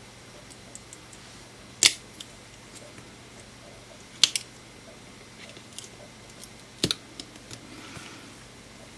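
Small hand tools clicking and tapping against the opened iPhone 6S and its parts on the bench: three loud sharp clicks roughly two and a half seconds apart, with fainter ticks in between.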